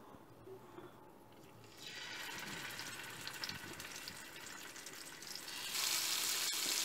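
Chilli-marinated sardines sizzling as they shallow-fry in hot oil in a pan. The sizzle starts about two seconds in, with a few small crackles, and turns suddenly louder near the end with a full pan of fish frying.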